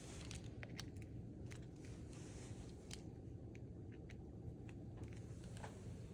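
Faint scattered clicks and small handling noises, a dozen or so sharp ticks at uneven spacing, over a steady low hum.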